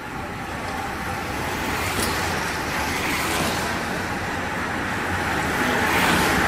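A bunch of road racing bicycles approaching at speed, a steady rush of tyres on asphalt that grows gradually louder as the group nears.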